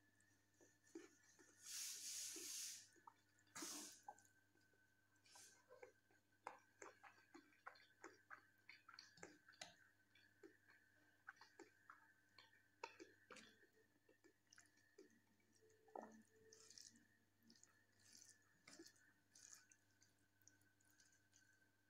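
Close-miked wet chewing and mouth clicks of a person eating rice and jackfruit curry by hand, with fingers squishing the food on the plate. There is a short burst of hiss about two seconds in and another shortly after, with many small crackles following.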